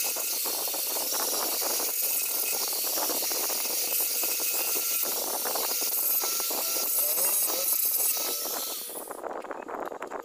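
Small angle grinder with an abrasive disc running against a printed circuit board, a steady high hiss with scraping as it grinds away a burnt, charred patch of the board. The grinding stops about nine seconds in, leaving light scratching.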